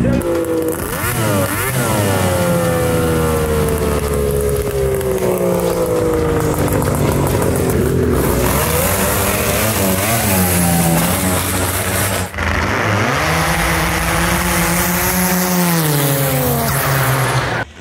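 Racing snowmobile engines at full throttle, their pitch sweeping down for several seconds, then rising, holding and falling again. The sound breaks briefly about two-thirds of the way through and cuts off just before the end.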